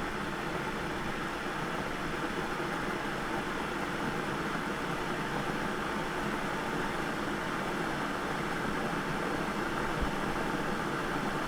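Electric kettle heating water: a steady rushing hiss, slowly growing louder.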